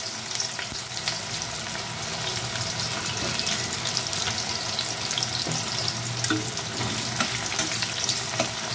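Chopped onion frying in hot oil in a kadai: a steady sizzle with scattered clicks from stirring.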